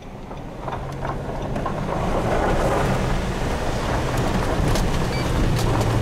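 Car engine running under load as it drives up a dirt road, heard from inside the cabin: a steady low drone that grows louder over the first two seconds. Tyre and road noise from the gravel surface, with scattered small clicks and rattles.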